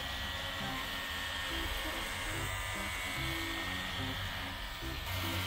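Electric detail sander running steadily while sanding the cut edge of a plywood panel, a continuous buzzing motor and pad noise, with background music underneath.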